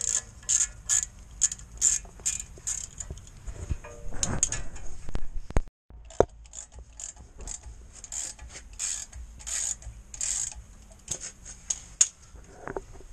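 Socket ratchet clicking in quick runs of strokes as bolts on the van's rear axle hub are turned.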